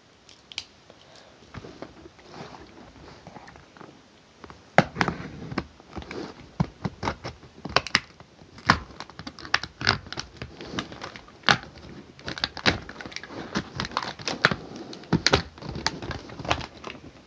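Hard plastic blister packaging being cut and pried open with a pocket knife: a long run of sharp plastic clicks, snaps and crackles. Faint for the first few seconds, then coming thick and loud from about five seconds in.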